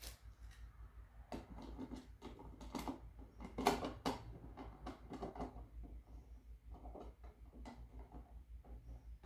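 Plastic outlet cover plate being handled and fitted over a new receptacle: a string of light, irregular clicks, taps and scrapes, the loudest about three and a half seconds in.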